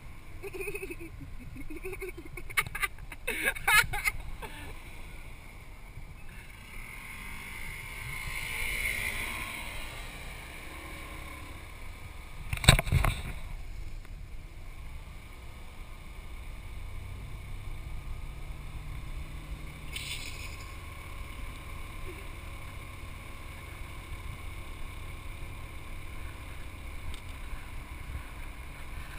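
Steady wind rush and road noise on a camera riding on a moving Yamaha Vino 125 scooter, with the scooter's engine running underneath. A few sharp knocks come a few seconds in, and one loud thump about halfway through.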